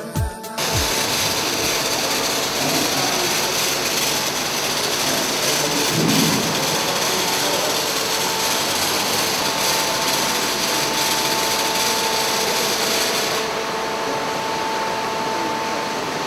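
Automated car-wash machinery running: a rotating side brush scrubbing a car's wheel and lower body while water sprays, heard as a steady hiss with a faint high motor whine.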